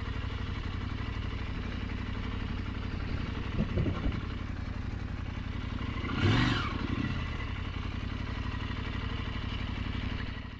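KTM 890 Adventure R's parallel-twin engine running steadily at low revs, with a short rise in revs a little past halfway through.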